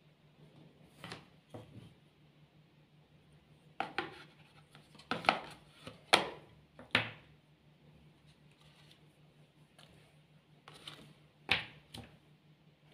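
Domino tiles clicking as they are handled, set down and slid into place on a cloth-covered table: scattered sharp clacks, a few in quick succession between about four and seven seconds in. A faint steady hum lies underneath.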